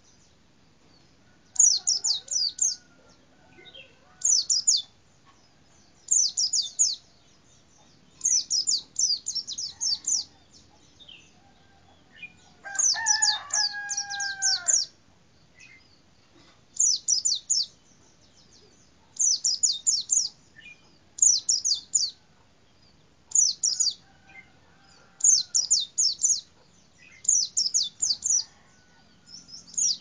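White-eye (pleci) singing: short bursts of rapid, very high, falling notes, repeated about every two seconds. Midway, a rooster crows once in the background, a longer and lower call.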